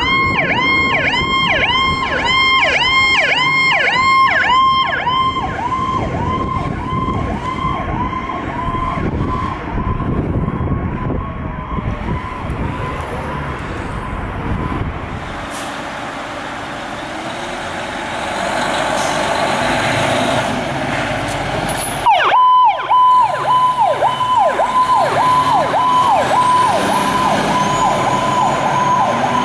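Powercall electronic sirens on responding ambulances and a fire engine, sounding a fast, repeating downward-sweeping tone about two times a second. The first siren fades away under the rumble of the passing vehicle and traffic, and after a sudden cut a second siren starts the same quick sweeping pattern about two-thirds of the way through.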